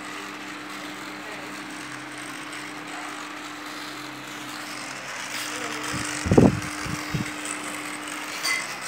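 Steady electric motor hum with a light hiss, and two low thuds, a loud one about six seconds in and a smaller one about a second later.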